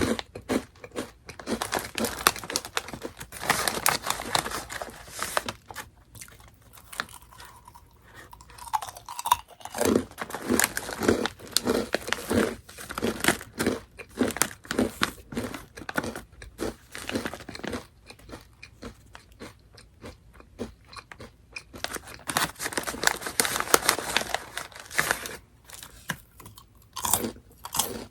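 Close-miked crunching and chewing of Orion Mala Chicken Pop, a crisp snack, with several bouts of rapid crunches and quieter chewing between.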